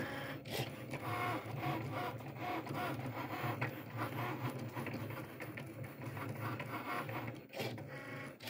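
Cricut cutting machine cutting out drawn mask shapes from a sheet on its mat. Its motors run with a whine that keeps changing pitch as the carriage and mat move, with a brief pause about seven and a half seconds in.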